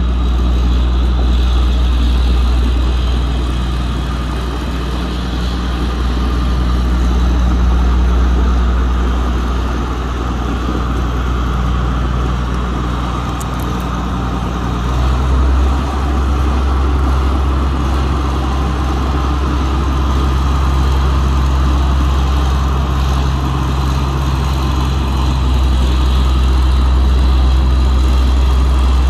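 The diesel engine of a 2002 John Deere 9320 4WD tractor running steadily, with a shift in its low note about halfway through.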